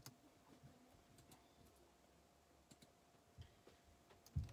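Faint, scattered clicks of typing as a short text message is tapped out and sent, with a dull thump near the end.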